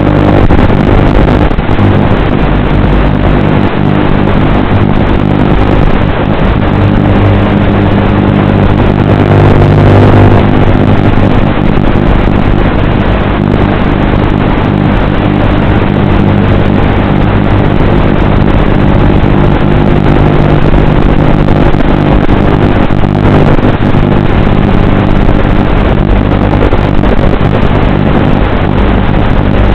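Small FPV drone's electric motors and propellers running, a loud, steady buzzing hum.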